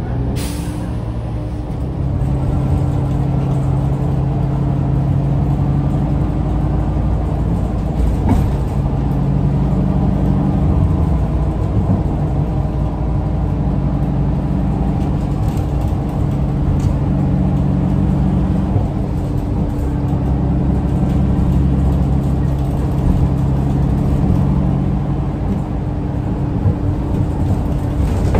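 Shuttle bus running, heard from inside the passenger cabin: a steady low hum with a held drone, and a single knock about eight seconds in.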